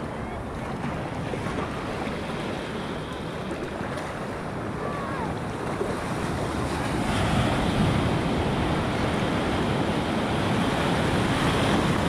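Shallow ocean surf washing and foaming in, with wind buffeting the microphone. The rush grows louder about seven seconds in as a wave surges up around the camera.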